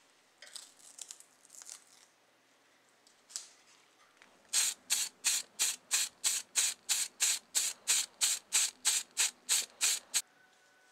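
Aerosol can of acrylic spray paint sprayed in quick short bursts, about three hisses a second, coating small model-car seats black. Before that, paper masking tape crinkles as it is peeled off the part.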